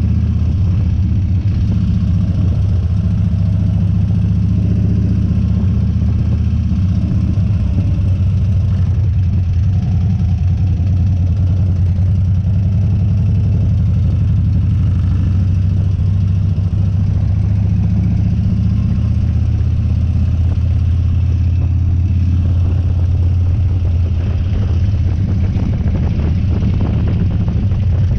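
Harley-Davidson Dyna's V-twin engine running steadily at a low, even pitch.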